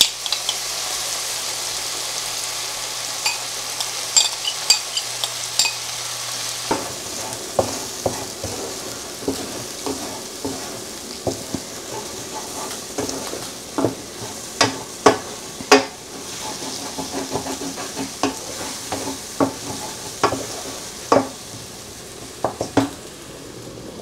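Kale sizzling in a frying pan, with a spoon stirring it and clicking against the pan again and again from about seven seconds in.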